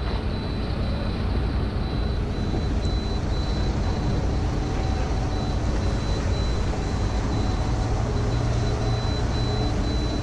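Steady low engine rumble, whose low hum grows stronger about eight seconds in.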